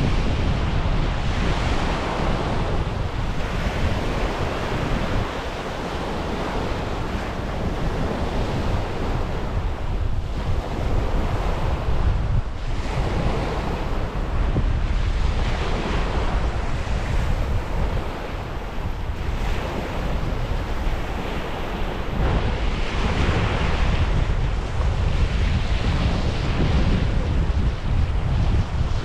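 Strong wind buffeting the microphone with a heavy low rumble, over waves washing onto a beach in surges that swell and fade every few seconds.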